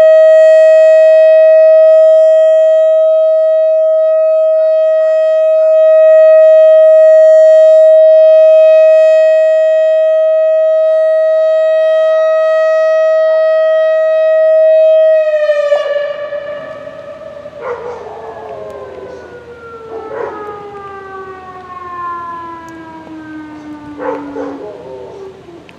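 Whelen WS-3016 outdoor warning siren at the end of a test, holding one steady high tone for about fifteen seconds. It then winds down, the pitch sliding lower and lower as it fades out.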